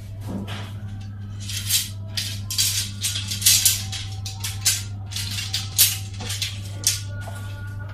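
Segmented tent poles rattling and clinking against each other and the tiled floor as they are sorted by hand, in irregular bursts with a few short ringing tones, over a steady low hum.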